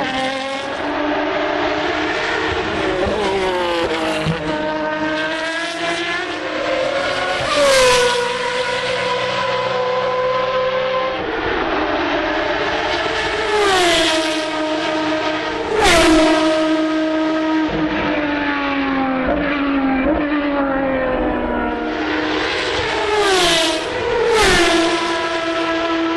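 Single-seater racing car engines at high revs going past on the circuit. The pitch drops sharply at each loud pass, about five times: around 8, 14 and 16 seconds in, then twice close together near the end.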